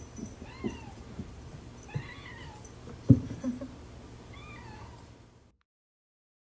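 Ragdoll cat meowing three times, short rising-and-falling calls about two seconds apart, with one sharp thump about three seconds in, louder than the meows.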